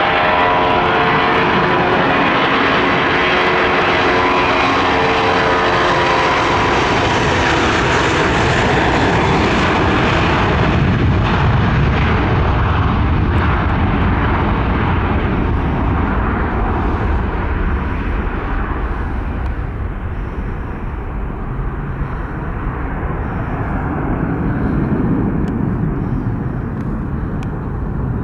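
Airbus A320-231's IAE V2500 turbofan engines at takeoff power. A whining, multi-toned buzz sounds at first as they spool up, then turns into a deep rumble as the jet accelerates down the runway and climbs away. The rumble fades somewhat in the second half and swells again briefly near the end.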